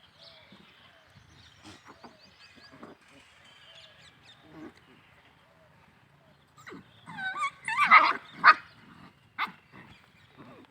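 Puppies whining, with faint scattered cries at first and then a loud run of high, wavering yelps and whimpers about seven to eight and a half seconds in.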